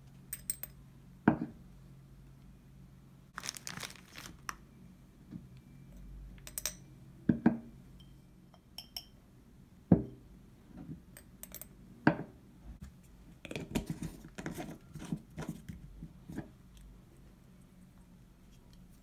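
A metal teaspoon clinking and tapping against a small glass spice jar as ground spices are spooned in: irregular light clinks and knocks, with a busier run of small ticks about three-quarters of the way through.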